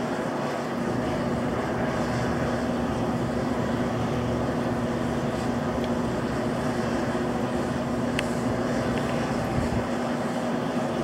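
Steady drone of rooftop air-conditioning equipment running, a constant low hum over an even rushing noise.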